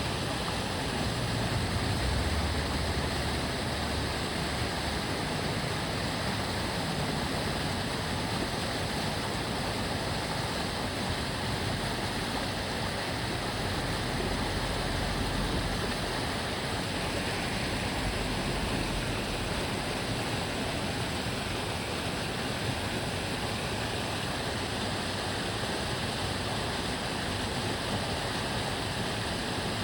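Water flowing in a small stream, a steady rushing babble. Low rumble of passing road traffic underneath, swelling about two seconds in and again around the middle.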